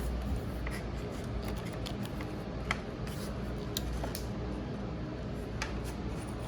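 Scattered light clicks and scraping from handling an electric scooter's motor controller as it is slid out of the stem tube, with a low steady hum underneath.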